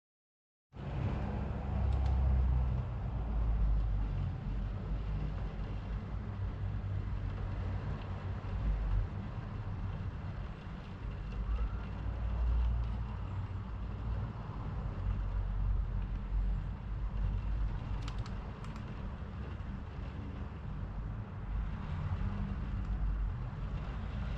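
Steady low rumble of wind and road noise, starting abruptly about a second in.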